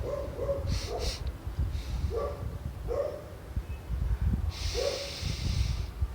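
An animal's short calls, repeating about once a second over a low rumble, with a burst of hissing noise lasting about a second past the middle.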